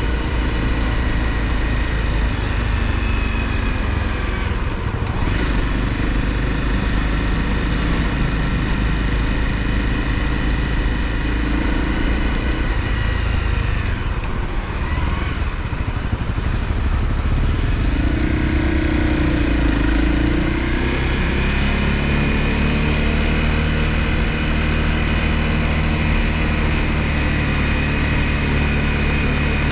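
Honda CRF250L's single-cylinder engine running while riding, with wind rush. The engine note holds steady, then dips and climbs again about halfway through as the rider changes speed.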